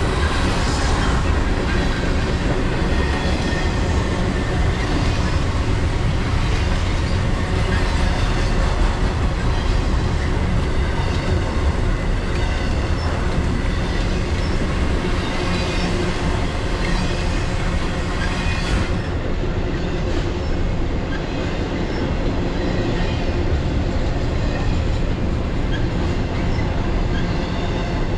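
A BNSF intermodal freight train's flatcars, loaded with highway trailers, rolling steadily past: a continuous noise of steel wheels running on the rails.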